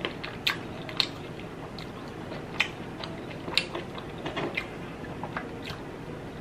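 Chewing and mouth clicks from a person eating, with irregular sharp clicks every second or so.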